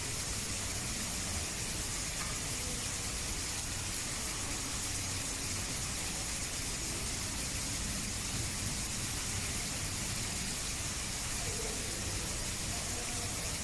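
Steady hiss with a low hum underneath, even throughout, with no distinct knocks, crunches or calls.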